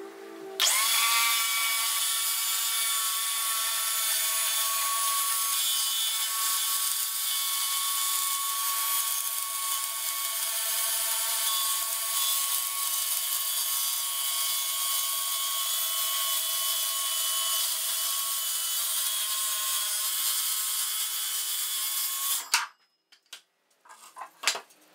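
Circular saw cross-cutting a sheet of plywood: the motor's whine and the blade's cutting noise run steadily for about twenty-two seconds, then stop abruptly. A few light knocks follow near the end.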